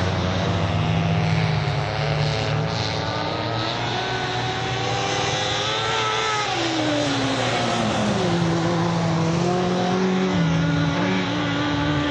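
Race car engines running at speed: the engine note climbs for the first several seconds, drops sharply about six to eight seconds in, then steadies and builds again.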